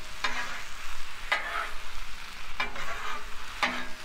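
Spatula scraping across the steel top of a Blackstone griddle four times, about once a second, stirring ground beef that sizzles steadily underneath. The sizzle comes from taco seasoning and water just added to the browned meat.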